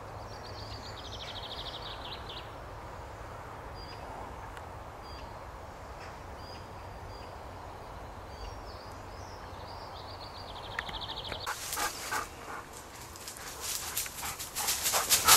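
Songbirds chirping, with a rapid trill near the start and again about ten seconds in. From about eleven seconds, footsteps crunch through dry leaf litter and twigs, getting louder toward the end.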